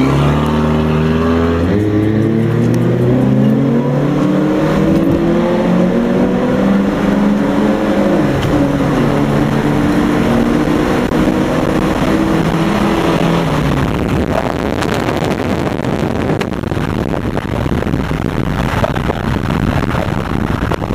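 Car engine under hard acceleration heard from inside the cabin: its pitch climbs for about eight seconds, drops at an upshift and climbs again, then the engine note falls away about two-thirds of the way through, leaving steady wind and road noise.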